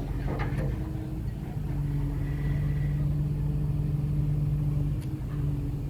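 Heavy machinery engine running steadily with a deep, even hum. A faint high whine rises over it for about a second, around two seconds in.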